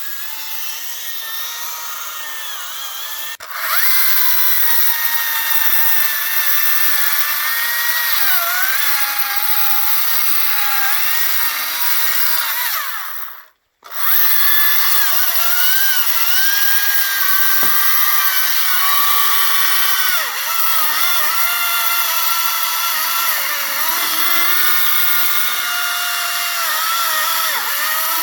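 Battery-powered electric chainsaw cutting wood: a high motor whine whose pitch dips each time the chain bites into the wood. It gets louder a few seconds in, stops briefly about halfway through and starts again.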